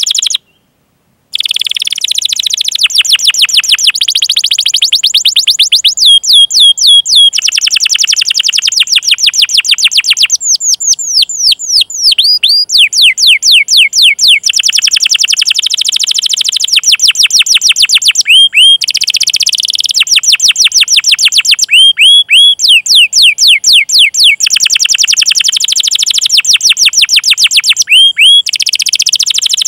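Domestic canary singing long rolling trills of rapidly repeated notes, broken now and then by sweeping 'cuit cuit' call notes that slide downward in pitch. The song cuts out completely for about a second just after the start, then runs on without pause.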